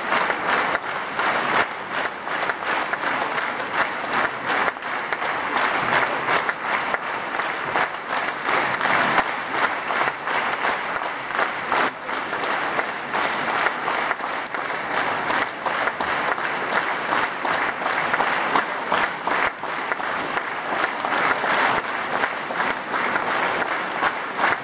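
Large theatre audience applauding: dense, steady clapping without a break.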